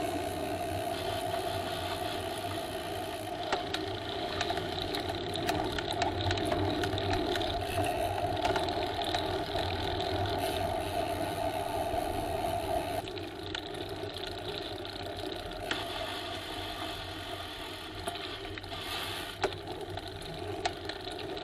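Bicycle being ridden: a steady hum with many small rattles and clicks. The hum drops away about 13 seconds in.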